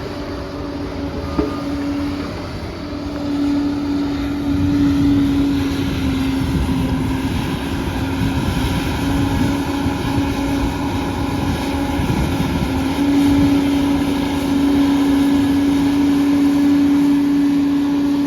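Liebherr 746 crawler dozer working: its diesel engine runs steadily with a strong, even whine over a low rumble, swelling in level now and then, with a single sharp click about a second and a half in.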